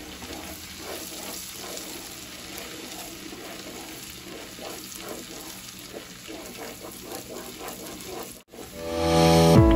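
Spicy seafood-boil sauce sizzling and bubbling in a pot while it is stirred with a wooden spoon. The sound cuts out briefly about eight and a half seconds in, and music comes in loudly near the end.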